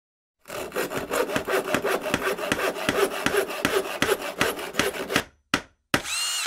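Hand saw cutting through wood in quick, even strokes, stopping about five seconds in. Then a click and a sharp knock followed by a short ringing metallic tone.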